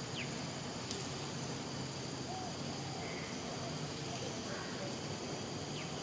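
A steady outdoor hiss with a few faint, short, high falling chirps from animals: one near the start, one about a second in and one near the end. Some soft, low calls come in around the middle.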